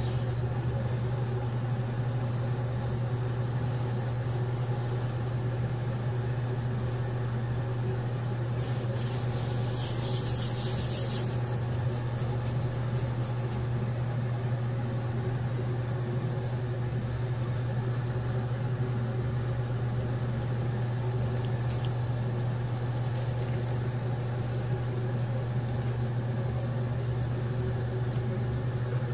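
A steady low hum with a constant drone of several held tones above it, unchanged throughout. A brief hiss comes about nine to eleven seconds in.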